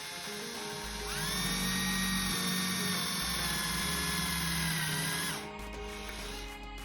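A power drill spins up about a second in, runs at a steady whine for about four seconds, then stops. Background music plays throughout.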